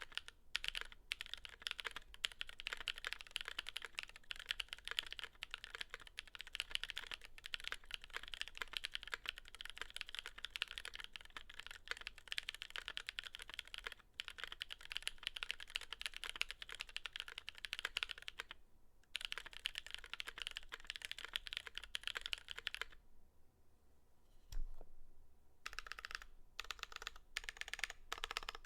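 Fast, continuous typing on a Velvet Pro mechanical keyboard with long-pole tactile switches (Razer Orange stems in Cherry housings) on a full aluminium plate with a double O-ring mount and GMK keycaps. The keystrokes come thick and fast, with a brief break. Near the end comes a pause of about two seconds, broken by one heavier keystroke, and then slower, separate keystrokes.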